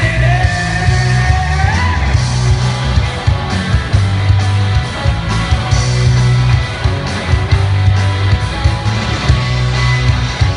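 A live rock band playing loud through a concert PA, with guitar and heavy, pulsing bass. A high held note slides upward about two seconds in.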